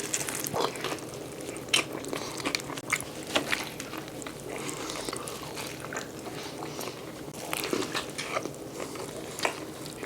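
Close-up chewing and biting of a juicy burger: wet mouth sounds with many short, irregular clicks.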